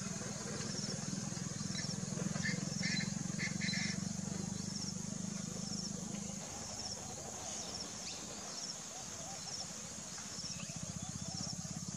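Outdoor wildlife ambience: short, high chirps repeat roughly once a second, with a few brief calls about two to four seconds in. A low steady hum underneath cuts off about six and a half seconds in.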